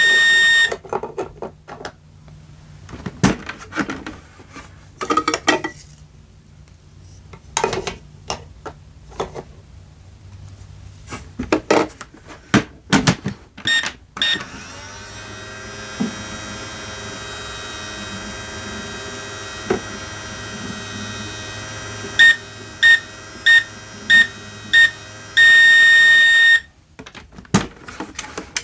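Toy microwave from a kitchen play set. First come plastic clicks and knocks of handling and button presses. Then it runs with a steady electronic hum for about ten seconds and finishes with five short high beeps and one long beep, the end-of-cooking signal.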